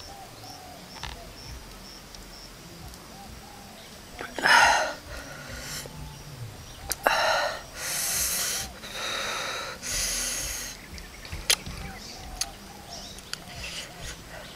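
A man gasping and hissing breath through his mouth against the burning heat of raw red onion with chili sauce. There is a loud gasp about four seconds in and another about seven seconds in, then three long hissing breaths, with a few sharp clicks between them.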